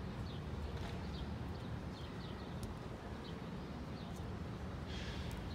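Outdoor street ambience: a steady low rumble with small birds giving short high chirps every second or so. A brief hiss comes near the end.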